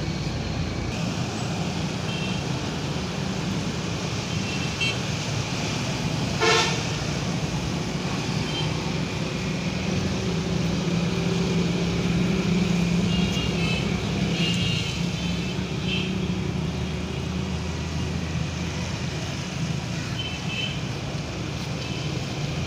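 Steady road traffic: passing motorbikes and other vehicles running along the road. There is a short, loud horn toot about six and a half seconds in, and a few fainter toots here and there.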